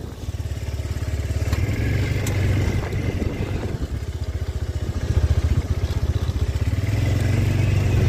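Side-by-side UTV engine running with a fast low pulsing, getting louder about halfway through, as it tows a snowmobile that won't start.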